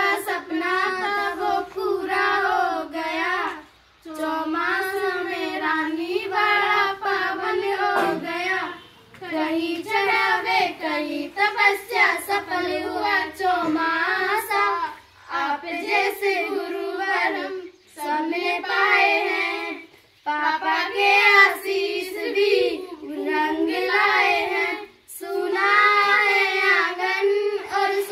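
Schoolgirls singing a Hindi song with no instruments, in phrases a few seconds long with short breaks for breath between them.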